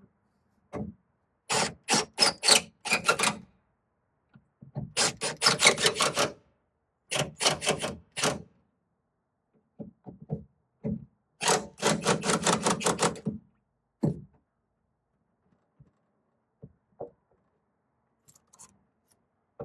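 Cordless drill/driver driving the bolts of a tailgate seal kit in several short bursts of rapid clacking over the first two-thirds, followed by a few light clicks of handling parts.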